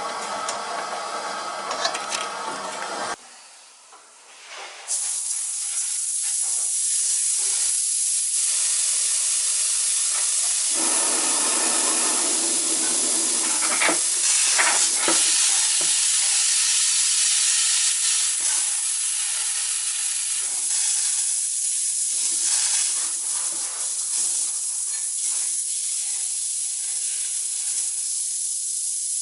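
Steady hiss of air escaping from an opened radiator bleed valve as the heating system fills with water. It is preceded by a steady mechanical hum that cuts off about three seconds in.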